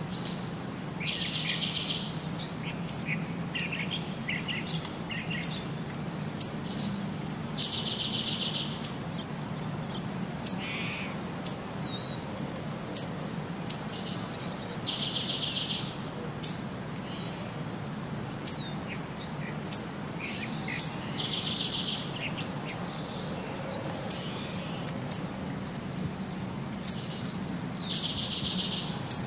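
Bird calls: a buzzy call about a second long, each one opening with a short higher note, repeats five times about every six to seven seconds. Short, sharp high chirps come between the calls, over a steady low hum.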